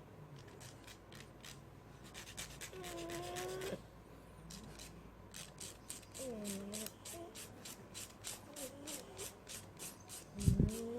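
A dog's nails being filed: quick rasping strokes, about four a second, with a few short soft voice sounds in between.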